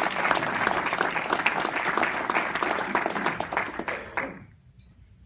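Audience applauding, dense clapping that tapers off and stops about four seconds in.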